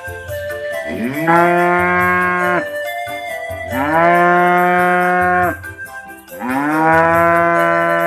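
Limousin heifer mooing three times, each a long call that rises in pitch at its start: the repeated calling of a heifer in heat. Background music with a steady beat plays underneath.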